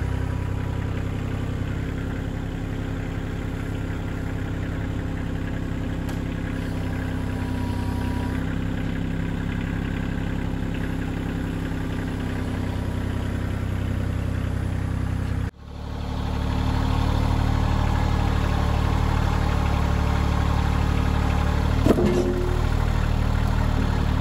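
Kioti CK2610 compact tractor's three-cylinder diesel engine running steadily while it carries a stack of pallets on its forks. The sound breaks off sharply about two-thirds of the way through and resumes at once, and a couple of short knocks come near the end.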